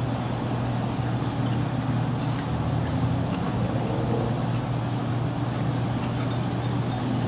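Insects trilling in a steady, unbroken high-pitched drone, with a low steady hum underneath.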